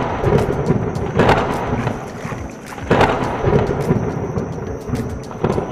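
Rain and rumbling wind noise, a dense steady rush that swells louder about a second in and again about three seconds in.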